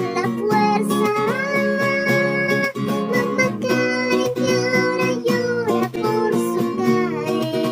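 A song with a strummed acoustic guitar under a sung vocal line, with a long note held about a second in.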